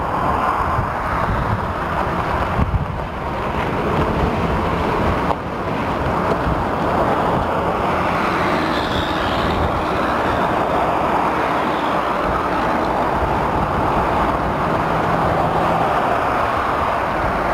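Ford F-350 pickup's engine running as the truck drives slowly past at low speed, mixed with wind noise on the microphone.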